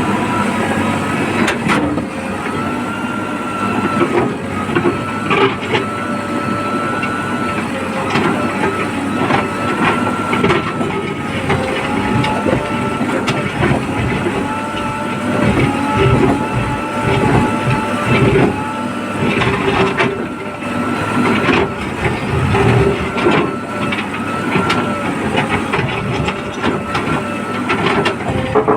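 JCB backhoe loader at work: its diesel engine runs under load with a steady, wavering hydraulic whine, and irregular knocks and clatter come from the digging and loading of mud.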